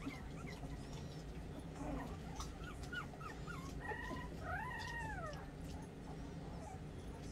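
Young puppies whimpering and squeaking as they crowd in to nurse from their mother. A few short squeaks come about two and a half seconds in, then a couple of longer whines that rise and fall around four to five seconds in, over a low steady hum.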